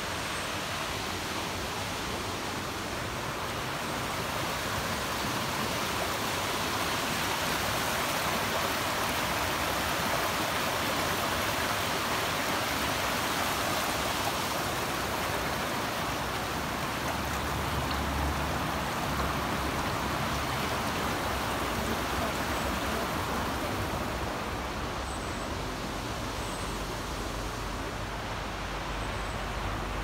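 Fast-flowing river rushing over stones below a waterfall: a steady rush of water that grows a little louder in the middle.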